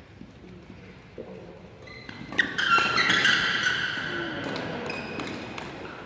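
Badminton doubles rally: sharp racket strikes on the shuttlecock and sneakers squeaking on the court mat, starting about two seconds in and busiest just after.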